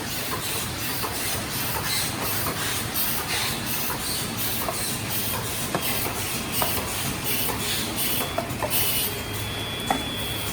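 Embossed paper-cup sleeve forming machine running, cycling in a fast even rhythm of short hissing puffs and light clicks over a steady mechanical hum.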